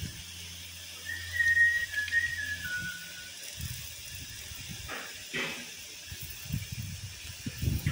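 Pop-up lawn sprinkler spraying a jet of water with a steady hiss. About a second in, a short high whistle falls in pitch in a few steps; it is the loudest sound. Low rumbling comes in during the second half.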